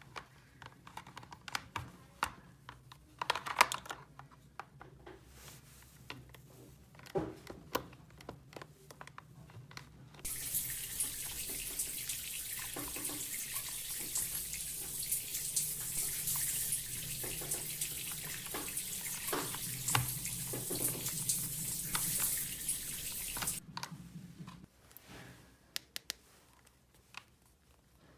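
Light clicks and taps of handled objects, then water running steadily from a tap for about thirteen seconds, stopping abruptly, followed by a few more clicks.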